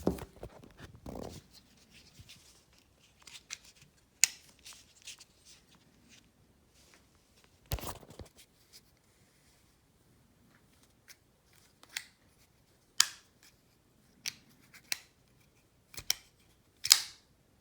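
Craftsman ball-bearing folding pocket knife being handled and tried out: a dozen or so sharp clicks and short snipping sounds at uneven intervals. The loudest come about four seconds in, about thirteen seconds in and just before the end.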